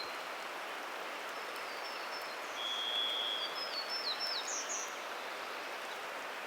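A distant varied thrush gives one long, level whistle a little over two seconds in. Around it come the high, thin notes of a Townsend's warbler's song. Under both runs a steady hiss of rainwater dripping from the canopy onto the forest floor.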